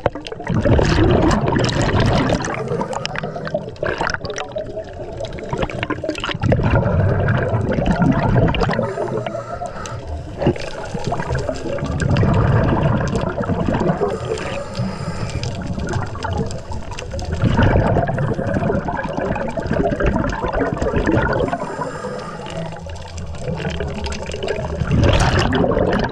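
Scuba diver breathing through a regulator, heard underwater: bursts of exhaled bubbles gurgling about every five seconds, with quieter inhalation hiss between them.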